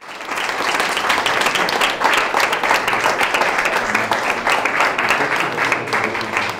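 A crowd applauding: many hands clapping at once in a dense, steady patter.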